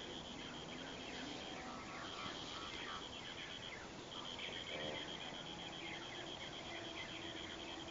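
Birds chirping: many quick falling chirps under a high, rapidly pulsed trill that runs for a few seconds at a time, breaks off briefly, and starts again.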